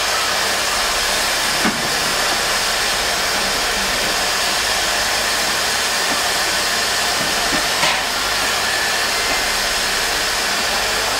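Steam locomotive 70 083, a small Bavarian Pt 2/3 tank engine, standing and hissing steam steadily and loudly, with two faint clicks.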